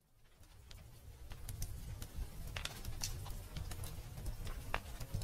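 Faint room tone: a low hum with scattered small clicks and taps, starting about a second in.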